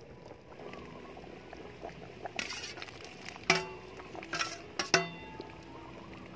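A metal ladle clinks twice against the side of a metal cooking pot, about a second and a half apart, each strike ringing briefly, with short scraping and splashing from stirring in between. Underneath, the pot of rice porridge bubbles steadily at the boil.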